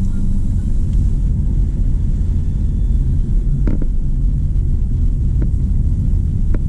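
Car driving, heard as a steady, loud low rumble of road and engine noise, with a few short clicks about three and a half, five and a half and six and a half seconds in.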